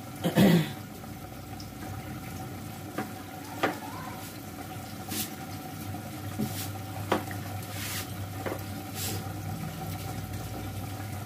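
Aloo gosht (mutton and potato curry) simmering in an aluminium pot on a gas burner: soft bubbling with scattered small pops over a steady low hum. A short loud noise comes just after the start.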